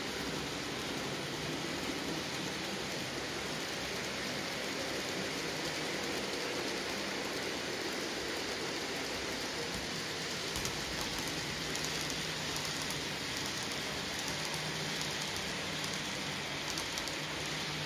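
N gauge model trains running on the layout: a Graham Farish Class 47 model locomotive and its freight wagons roll over the track with a steady, even rattle-hiss. A low hum comes up in the last few seconds.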